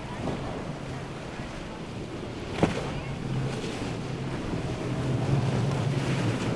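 Twin outboard motors of a center-console fishing boat running at speed, with water rushing off the hull and wind on the microphone, getting louder toward the end as the boat nears. A single sharp slap comes about two and a half seconds in.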